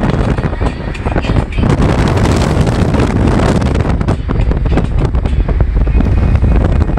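Wind rushing and buffeting against the phone's microphone from the open window of a moving car, over a low rumble of engine and road noise.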